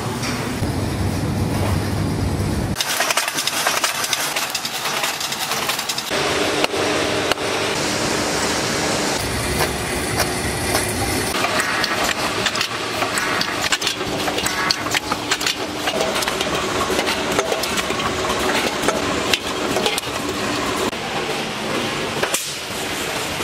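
Can-making factory machinery running: a dense mechanical clatter full of quick clicks, with a steady hum in some stretches. The machine sound changes abruptly several times as the production line moves from sheet printing to can handling and conveying.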